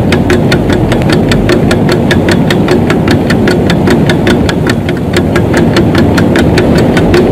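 Closing theme music: a dense, steady drone under a fast, even ticking beat, with a machine-like rhythm.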